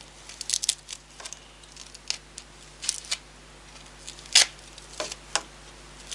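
A small taped parcel being worked open by hand: scattered short crackles and clicks of tape and plastic packaging, the loudest about four and a half seconds in.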